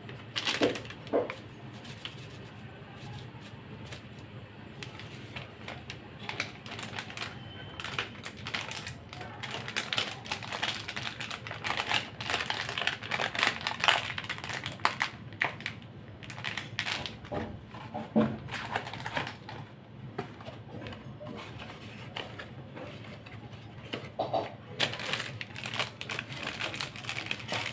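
Irregular light clicks and clinks of steel kitchen utensils being handled, with a spoon against a steel mixing bowl, over a low steady hum.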